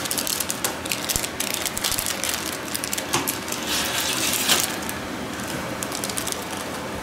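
Plastic and foil snack wrappers crinkling as hands pull them open: a dense, irregular crackle of small clicks.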